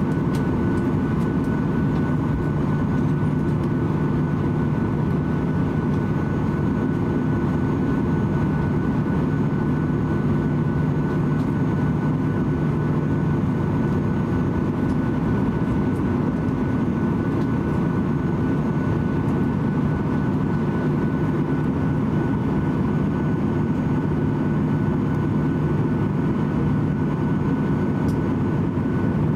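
Inside the cabin of a Boeing 737-800 taxiing: its engines run steadily at low taxi power under the cabin air noise, a constant rumble with a thin high whine over it.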